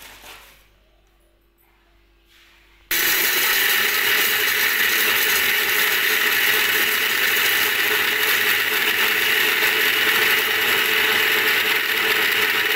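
Electric mixer grinder with a steel jar grinding peanuts. It switches on abruptly about three seconds in and then runs loud and steady.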